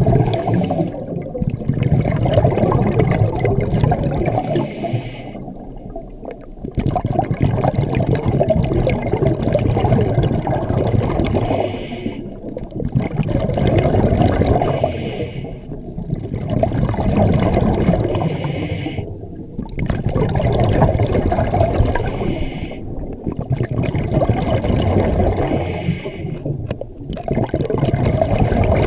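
Scuba diver breathing through a regulator, recorded underwater: rushing, gurgling bubbles of each exhalation alternating with quieter gaps, in a slow, even cycle every few seconds.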